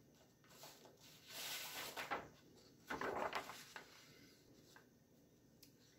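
A sheet of drawing paper slides over the tabletop and rustles as it is laid down, in two bursts about a second apart.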